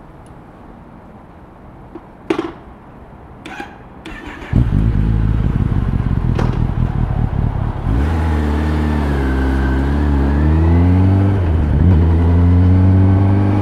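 Kawasaki ZX-10R's 998 cc inline-four engine starting about four and a half seconds in after two sharp clicks, running steadily, then pulling away with its note rising and dipping through a gear change and rising again.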